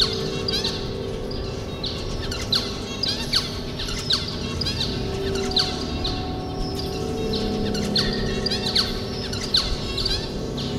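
A flock of small Australian finches, zebra finches among them, calling in many short, quickly repeated chirps. Under the calls runs a steady low drone of held tones.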